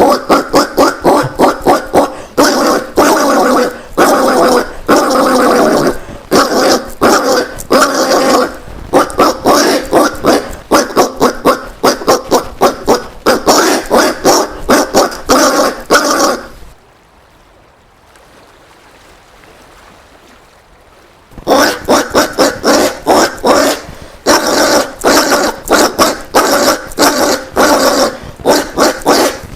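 Collared peccary (caititu) calling in rapid runs of short, harsh calls, several a second. A run lasts about sixteen seconds, a pause of about five seconds follows, and then another run begins.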